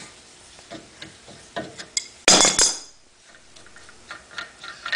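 Metal-on-metal clinks from an adjustable wrench working a brass check-valve cap on a pump head clamped in a bench vise. A little over two seconds in there is one loud clatter of about half a second, as the steel wrench is set down on the metal workbench, followed by light clicks as the cap is turned by hand.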